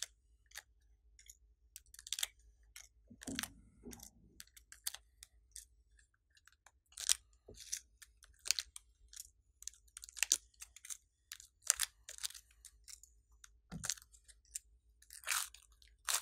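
Crisp, irregular crackles and clicks as plastic sequins are picked off a layer of glossy slime by hand.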